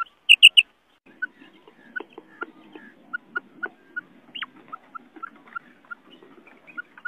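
Quail calling: a loud, quick three-note call right at the start, then a run of soft, short call notes repeated irregularly over faint background noise, with one falling note partway through.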